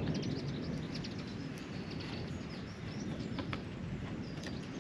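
Outdoor background of steady wind rumble on the microphone, with faint, scattered short chirps and small ticks over it.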